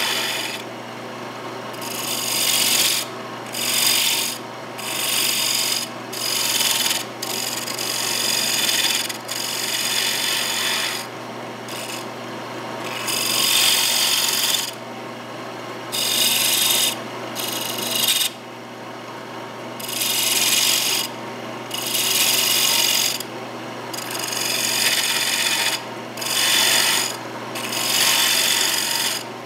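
Turning tool cutting into a mahogany blank spinning on a wood lathe, hollowing out a bowl's inside. The cut comes in repeated passes of a second or two, each a loud hiss of tool on wood, over the lathe motor's steady hum.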